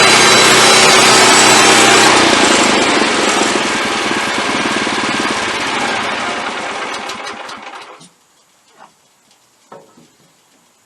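Wood-Mizer LX25 band sawmill running loud, then shut off about two seconds in. The band blade and drive wind down over several seconds, slowing until they go quiet, and a few light knocks follow near the end.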